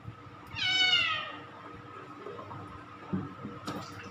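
British Shorthair cat meowing once, a loud, drawn-out meow that falls in pitch, while being bathed. Two light knocks follow about three seconds in.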